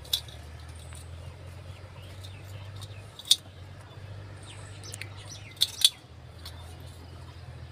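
Four sharp snips of a pruning tool cutting through dragon fruit stems: one at the start, one about three seconds in, and two in quick succession near the end, over a steady low hum.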